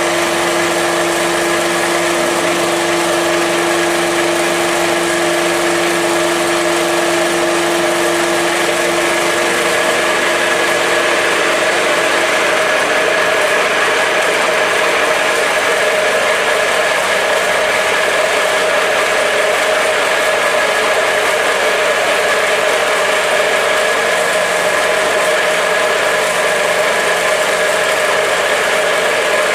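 Small feed pellet mill driven by its electric motor, running steadily with a loud hum and whine. A low hum in the sound fades out about a third of the way through, while the rest of the machine noise carries on unchanged.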